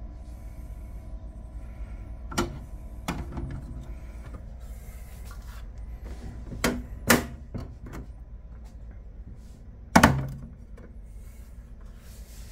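Five sharp knocks from plastic insect enclosures being handled, the loudest about ten seconds in, over a low steady hum.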